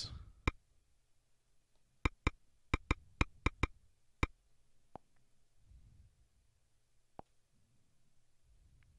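Key taps on an Android tablet's on-screen keyboard: a quick run of about nine sharp clicks, one per letter, as a search is typed, then a few single taps.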